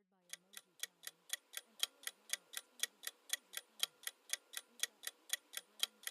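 Clock-ticking sound effect of a quiz countdown timer, even ticks about four times a second, marking the seconds left to guess.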